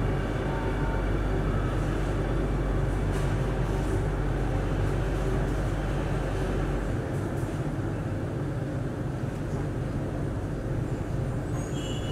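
Singapore MRT Circle Line train heard from inside the carriage, running with a steady low rumble and hum. The deepest part of the rumble drops away about halfway through as the train slows into a station.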